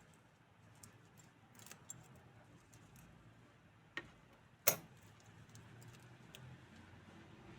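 Small clicks and taps from a plastic mini doll being handled, with a sharp click about four seconds in and a louder one just after it.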